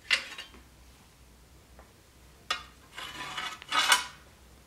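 The saber's metal guard clinks sharply against the blade. About two and a half seconds in there is another click, then a scrape of a little over a second as the handle is slid along the steel tang.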